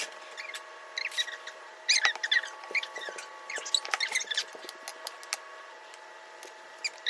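Plastic piping bag squeaking and crinkling in short bursts, with small clicks, as it is stuffed with thick frosting. The squeaks are busiest in the first half.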